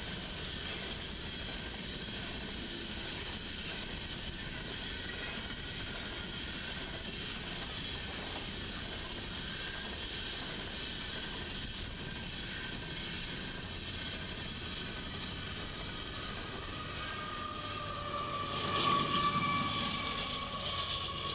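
Union Pacific coal train moving past: a steady drone with several high tones that grows louder near the end, with clattering.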